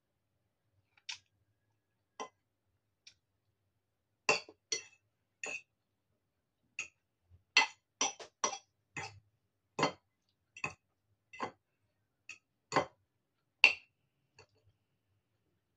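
A metal fork clicking and clinking against a ceramic bowl of noodles. It makes about twenty irregular sharp clicks, a few in the first seconds and then many more from about four seconds in.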